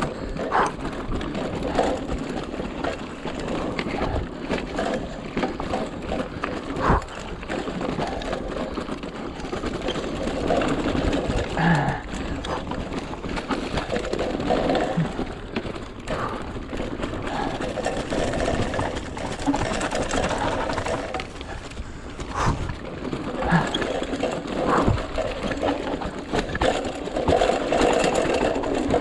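Mountain bike riding fast down a rough dirt and rock trail: a steady rattle from the chain and frame and the tyres running over dirt and stones, broken by sharp knocks as the bike hits bumps and rocks.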